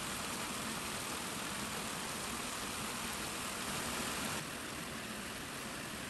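Water pouring steadily over a small spillway weir, a continuous rushing, slightly softer about four seconds in.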